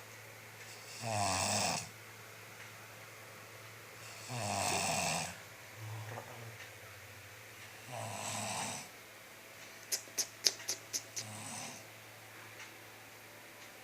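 A sleeping person snoring, with loud rasping snores about every three to four seconds. About ten seconds in, a quick run of about eight sharp clicks comes between snores.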